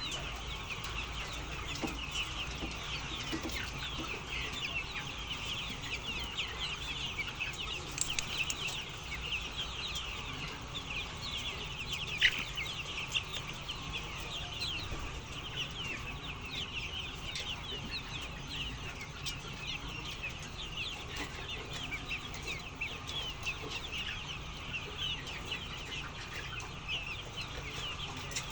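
A flock of chickens calling together: a dense, continuous chorus of many short, high-pitched calls. One brief louder sound stands out about twelve seconds in.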